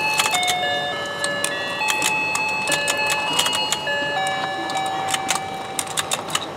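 Battery-powered toy fishing game playing its simple electronic tune, one plain beeping note after another, over the plastic clicking and rattling of its motor-driven rotating fish plate.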